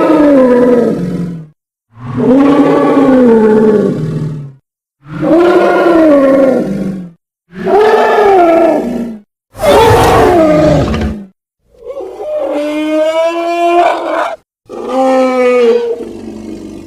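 Triceratops roar sound effects: a series of about seven separate roaring calls, each around two seconds long, rising then falling in pitch, with short silences between. The last two calls are quieter.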